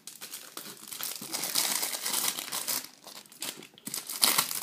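Plastic wrapping crinkling and tearing as it is pulled off a DVD box set, in uneven bursts with a short lull a little past halfway.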